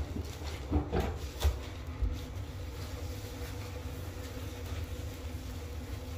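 Handling noise from the camera being moved: a few short knocks and bumps in the first two seconds, then a steady low hum.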